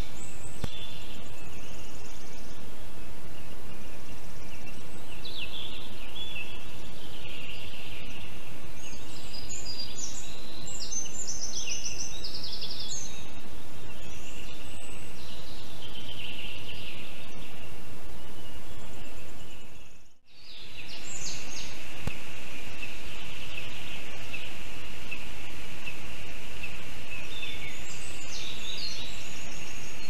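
Small forest birds singing in short, high chirping phrases over a steady hiss, with a steady high-pitched note running through the second half. The sound fades out briefly and comes back about two-thirds of the way in.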